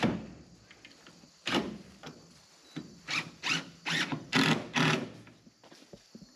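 About eight hard knocks and clunks from hands-on roofing work on a metal roof and an aluminium stepladder. Two come singly in the first two seconds, then five or six follow quickly, roughly half a second apart.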